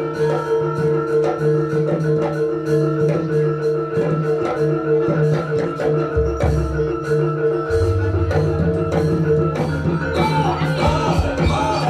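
Javanese gamelan music for a jaranan dance: metal mallet instruments play steady repeating notes over rapid drum strokes, and a deep low tone comes in about six seconds in.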